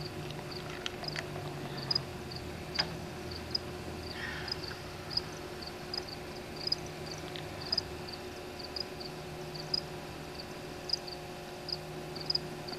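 A cricket chirping, short high chirps about twice a second, over a steady low hum, with a few light clicks.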